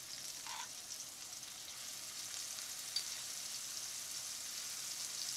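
Ground red onion paste frying in hot ghee with cumin seeds in a frying pan: a steady crackling sizzle that grows slowly louder as more lumps of paste go in. A single light click about three seconds in.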